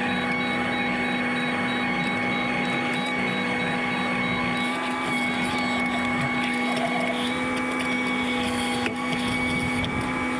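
Caterpillar 304E mini excavator running at a steady engine speed as its bucket and boom are worked: an even engine drone with a steady high whine over it.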